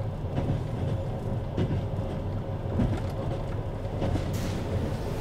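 Steady low rumble of a moving vehicle, with a faint steady hum and a few light clicks.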